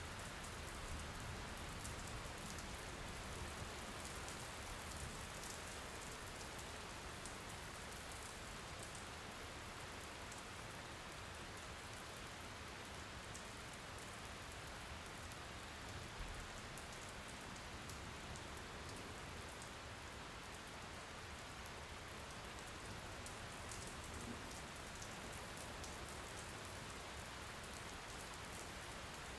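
Steady rain falling: an even hiss with fine ticks of individual drops, unchanging throughout.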